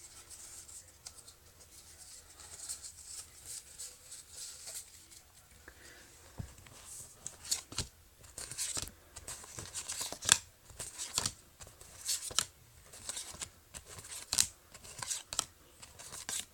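Pokémon trading cards being handled and laid out. It is faint at first, then from about six seconds in comes a quick run of sharp clicks and brushing sounds from the card stock.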